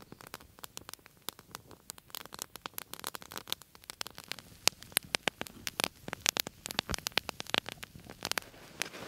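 Campfire crackling and popping: irregular sharp snaps, several a second, thickest from about two seconds in until near the end.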